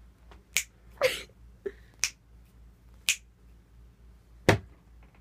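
Four sharp finger snaps about a second apart, made to set off a sound-activated animatronic cat; the last snap is the loudest. A short, noisier sound falls in pitch just after the first snap.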